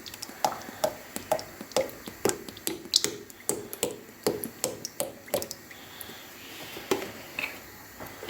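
Milk glugging out of a one-litre bottle as it is poured into the batter, a series of short gulps about two a second that stops about five and a half seconds in, with one more near the end.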